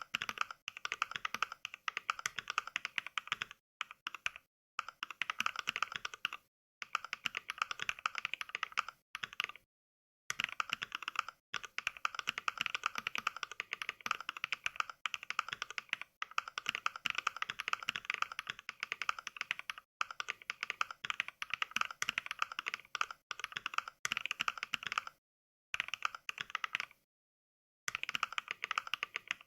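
Fast touch-typing heard as the Mechvibes NK Cream sound pack, sampled mechanical keyboard switches: a quick, even stream of clacky keystrokes. It breaks off several times into moments of dead silence, the longest about a second long near the end.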